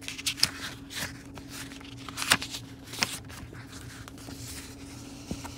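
Paper pages of a picture book being turned and handled: rustling with a few sharp crackles, the loudest a little past two and three seconds in, over a faint steady hum.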